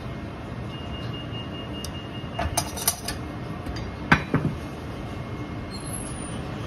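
Metal tongs and a spatula clinking against a ceramic bowl as a grilled eel fillet is laid on fried rice: a short run of clinks about two and a half seconds in, then one sharper knock about a second later, over a steady background hum.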